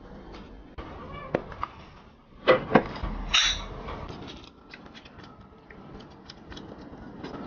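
Crisp crunching of a bite into a chocolate-coated wafer ball, with two loud crunches about two and a half seconds in, then light clicks of a fork on a plate.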